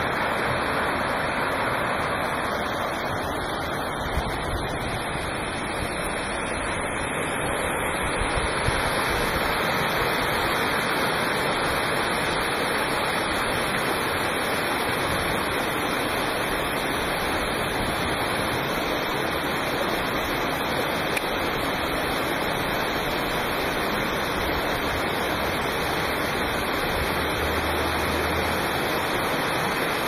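Steady rush of water from a small waterfall pouring onto rocks, together with the stream flowing away below it.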